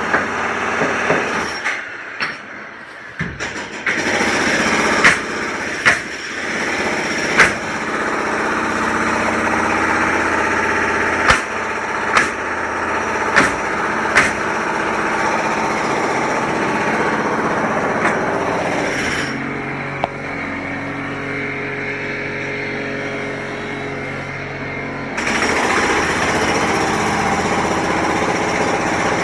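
Construction-site machinery running steadily, with sharp metal clanks and knocks breaking through several times. The engine noise drops lower for several seconds and comes back up near the end.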